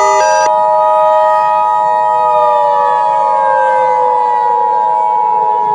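Emergency Alert System attention signal, a steady two-tone sound, playing over a civil defense siren whose pitch falls slowly as it winds down. A short music passage cuts off about half a second in.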